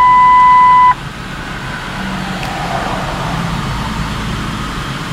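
A single steady electronic chime of about one second from a 2003 Lincoln LS's instrument cluster, sounding as the message center puts up a new message, then the engine idling steadily.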